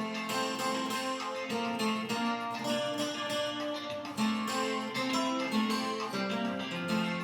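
Brazilian viola caipira, a ten-string guitar with paired strings, playing a hymn tune in a steady run of plucked and strummed notes.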